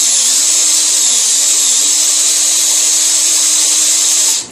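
Power drill running under load as its bit bores through a padlock's metal body, the motor pitch sagging a few times as it bites. The drill stops briefly near the end and starts again.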